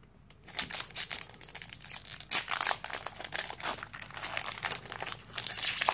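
Foil Pokémon TCG booster pack wrapper being crinkled and torn open by hand, starting about half a second in and going on as dense, irregular crackling.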